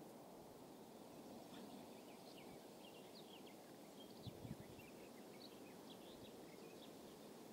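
Faint, scattered chirps of small birds over a low, steady outdoor hiss, with a couple of soft low thumps about four seconds in.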